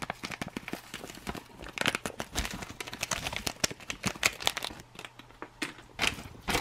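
Thin plastic ration bag crinkling and rustling in a dense run of small crackles as seasoning powder is shaken in from a paper packet and the rice inside is mixed.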